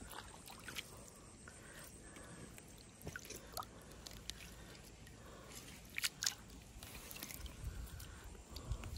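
Faint rustling and a few sharp clicks as a fishing line and rod are worked through weeds in shallow water, with a low rumble of handling noise building near the end.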